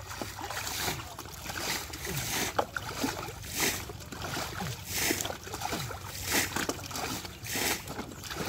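Muddy water sloshing and splashing as a plastic bowl scoops and dumps it, in repeated surges a second or so apart, while the pool is bailed out by hand.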